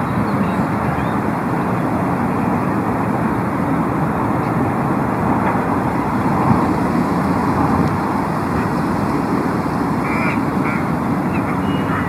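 Steady outdoor background noise with a low rumble throughout, and a few short faint calls near the end.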